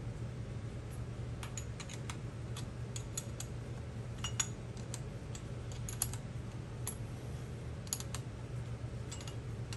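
Small metal parts and hardware clicking and tapping irregularly as they are handled and fitted during reassembly of a small motorcycle engine's carburetor and intake, over a steady low hum.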